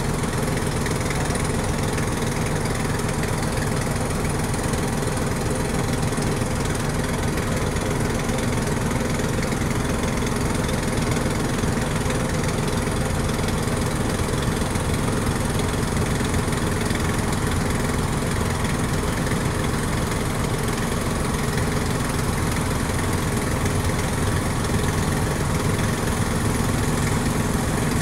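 A boat's engine running steadily at idle, an even, unchanging drone.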